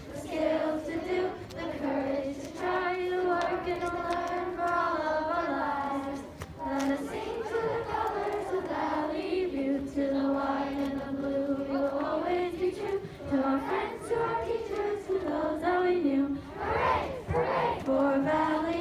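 A large group of elementary-school children singing their school song together, one sustained melody line.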